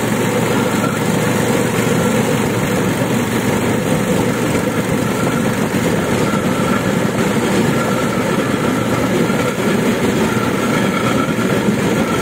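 Railway motor trolley travelling along the track: its engine and running gear make a steady, unbroken noise.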